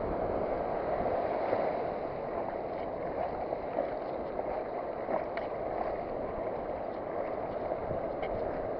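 Steady roar of sea surf breaking on a beach.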